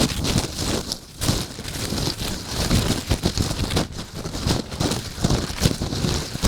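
Footsteps crunching and crackling through dry fallen leaves, an irregular run of crisp rustles.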